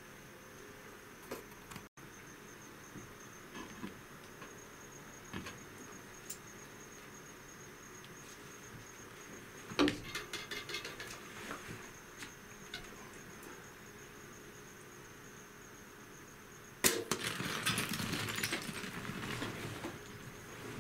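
A steady high insect drone, broken by a loud sharp crack about ten seconds in with a couple of seconds of rattling after it. Near the end a second sudden sharp sound sets off several seconds of loud scrambling noise.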